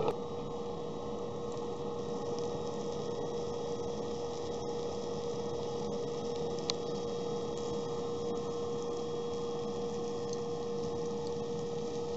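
Battery-driven fan of a Lotus Grill charcoal barbecue running, a steady one-note hum over a hiss of forced air, which keeps the charcoal glowing under the grate. A single sharp click about seven seconds in.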